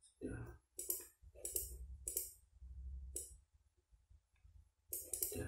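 Faint computer-mouse clicks and taps while a shape is dragged and resized on screen, coming every half second to a second, with a low rumble from the desk in the middle.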